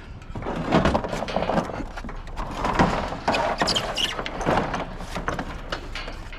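Scattered knocks, thunks and rattles from scrap items being handled and moved.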